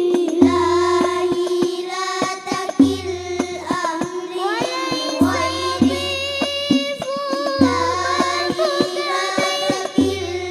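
Children singing sholawat in the al-Banjari style, amplified through a PA: a wavering, ornamented sung melody over hand-played rebana frame drums, with a deep bass-drum stroke about every two and a half seconds.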